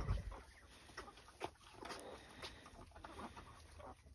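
Newborn piglets making short, faint squeaks and grunts while suckling from the sow, with a dull thump right at the start.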